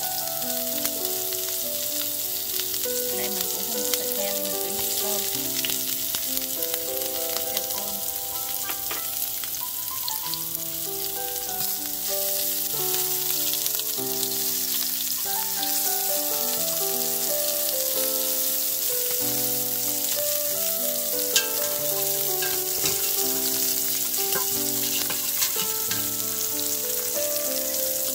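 Sliced onions, mushrooms and shrimp sizzling in hot oil in a frying pan, stirred with chopsticks, with a few sharp pops of spattering oil in the second half. Quiet background music with a stepping melody plays underneath.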